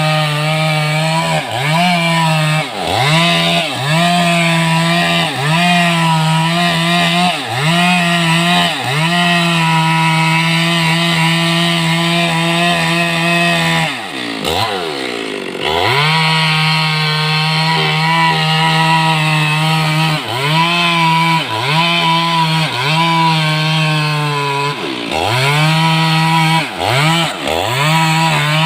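Stihl MS 382 two-stroke chainsaw running near full throttle. Its engine note dips sharply and climbs back every second or two, with a longer drop about fourteen seconds in.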